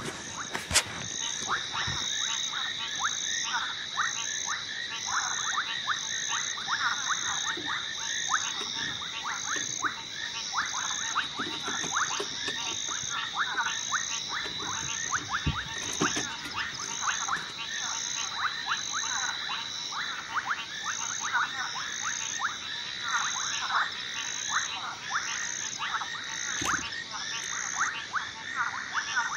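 Night chorus of frogs and insects: many short clicking frog calls over a steady high insect whine that stops near the end, with a higher chirp repeating about one and a half times a second.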